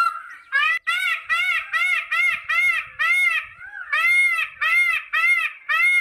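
Indian peafowl calling: a rapid series of short, loud calls, about two a second, each rising then falling in pitch, with a short pause about halfway through.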